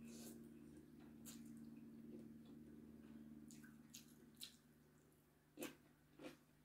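Faint sounds of a person eating noodles: a short slurp as a forkful is sucked in at the start, then chewing and a few soft clicks and smacks from the mouth and cutlery, over a steady low hum.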